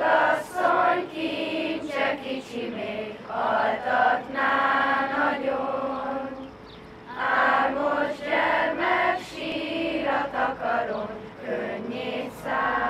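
A group of schoolchildren singing a song together in phrases, with a short pause about halfway through.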